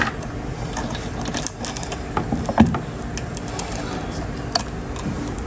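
Steel saw chain clicking and rattling as it is worked around the sprocket and seated in the groove of the chainsaw bar, with a few sharper metal clinks, over a steady low hum.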